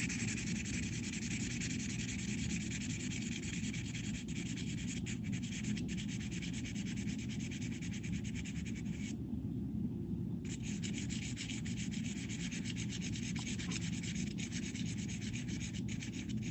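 Soft 6B graphite pencil, held in a metal extender, scratching across paper in rapid back-and-forth shading strokes. The pencil is laying down a tone that grades from dark to light as the pressure eases. The strokes stop briefly about nine seconds in.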